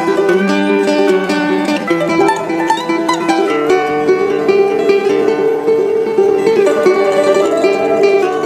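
Background music carried by a plucked string instrument picking a quick melody.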